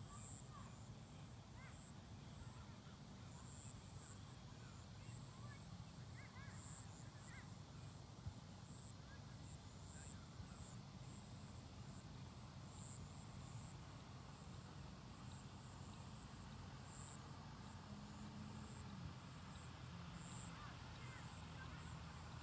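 Faint evening outdoor ambience: a steady high-pitched insect drone with a soft repeating pulse, scattered faint bird chirps, and a low rumble underneath.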